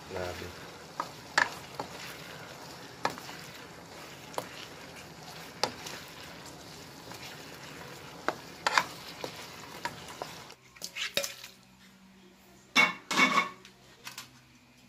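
Chicken and vegetables sizzling in sauce in a nonstick wok while a plastic spatula stirs them, tapping and scraping the pan now and then. The sizzle stops after about ten seconds, followed by a few louder knocks.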